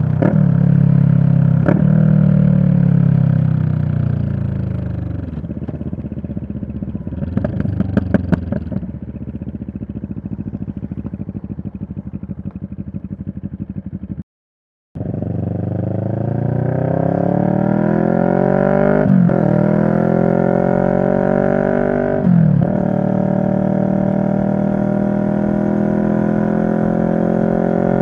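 2023 CFMoto 650NK's parallel-twin engine coming off the throttle and dropping to an even idle, with a brief clatter of clicks around eight seconds in. After a short dropout the bike pulls away, revs climbing, shifting up twice, then holding a steady cruise.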